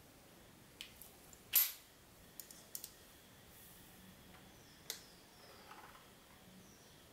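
Scattered sharp clicks and taps of a screwdriver and fingers on a laptop's plastic bottom cover while its screws are being worked, the loudest about a second and a half in.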